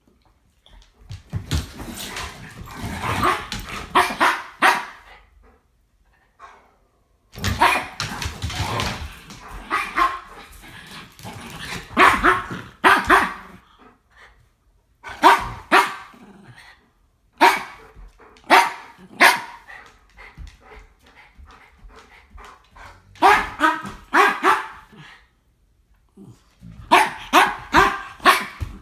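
Dog barking in play, in bursts of several quick barks with short pauses between.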